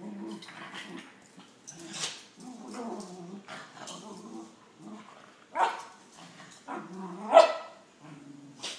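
Dogs play-wrestling: steady low growling, broken by two sharp barks in the second half, the second one the loudest.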